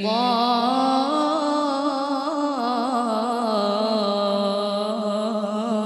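A boy's voice reciting the Quran in melodic tilawah style, drawing out one long ornamented note with wavering pitch that climbs about a second in and sinks back down by the middle. The voice is amplified through a handheld microphone.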